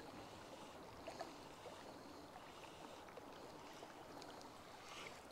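Near silence: faint, steady lapping of small waves at the rocky edge of a loch.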